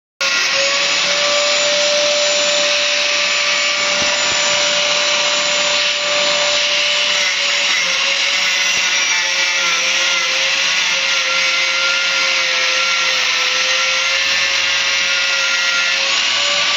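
Angle grinder running under load, its disc grinding into the steel of a Suzuki Jimny's rear chassis by the spring mount, with a steady motor whine over the grinding noise.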